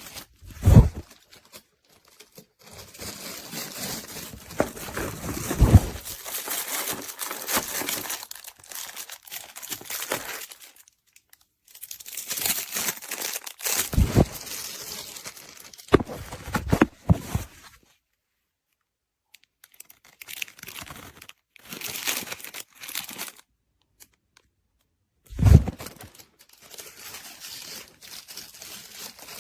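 Irregular rustling and crinkling with several sharp thuds, in separate spells broken by dead gaps.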